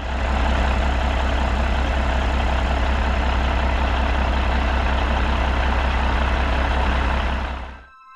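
Kenworth T800 dump truck's diesel engine idling, a steady deep rumble that fades out near the end.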